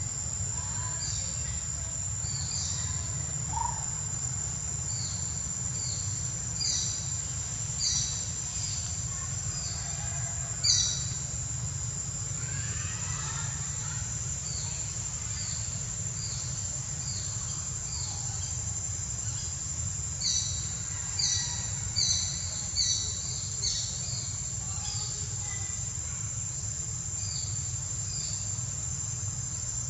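Outdoor ambience of a steady high-pitched insect drone, with a bird giving short falling chirps in scattered runs, over a steady low hum.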